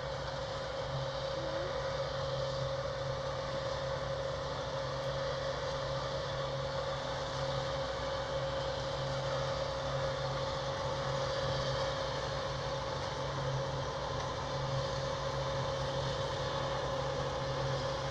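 Combine harvester running steadily while harvesting barley, its engine and threshing machinery making an unbroken drone with a constant whine.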